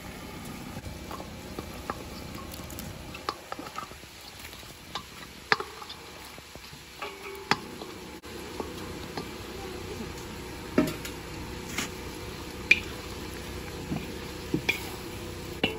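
Stir-frying in a wide metal wok: a steady sizzle as a wooden spatula stirs and scrapes the food, with sharp knocks of the spatula against the metal now and then.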